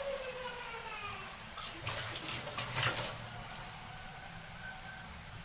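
Batter-coated potato strips deep-frying in hot oil: a steady bubbling sizzle, with a louder burst of crackling about two to three seconds in.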